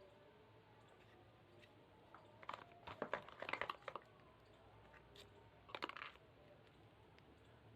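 Handling noise from unboxing a phone: two short flurries of clicks and crinkles, the first about two seconds in and a briefer one near six seconds, against near silence.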